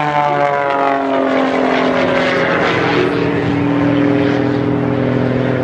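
Propeller aerobatic airplane's engine running loudly as it flies past, its pitch falling over the first couple of seconds and then holding steady.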